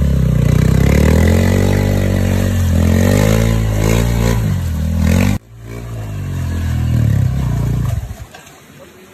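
Honda CRF dirt bike's single-cylinder engine revving up and down hard as the rear tyre spins in deep mud, with the bike stuck. It drops out suddenly about five seconds in, revs up again, then dies away near the end.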